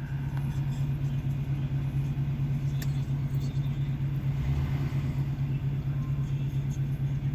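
Truck engine idling steadily, a constant low hum with an even pulse.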